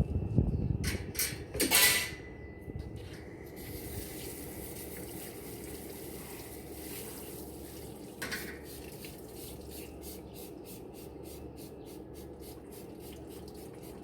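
Metal parts of a stainless barbecue grill clattering as it is cleaned, then a few seconds of steady hiss, then quick rhythmic scrubbing strokes, about four or five a second.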